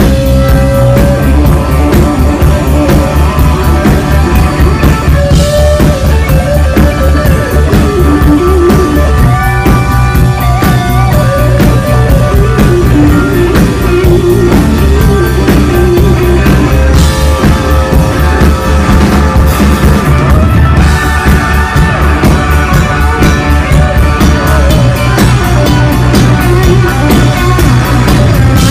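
Live rock band playing loud with no vocals: electric guitar and drum kit over a heavy, steady low end, with sustained melodic lead lines.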